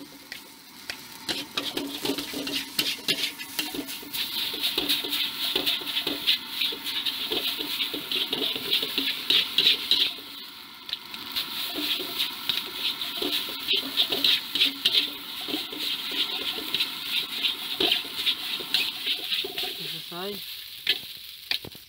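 Metal spatula scraping and knocking against a large metal wok as egg fried rice is stir-fried, a quick irregular run of scrapes over a steady sizzle.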